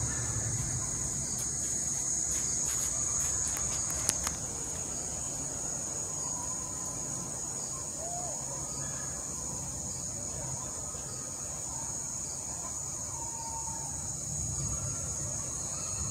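Steady, high-pitched chorus of insects at dusk, with a few faint short chirps over it and one sharp click about four seconds in.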